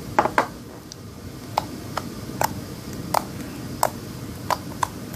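Homemade glue slime being squeezed and poked by hand, giving about ten sharp clicking pops at uneven intervals.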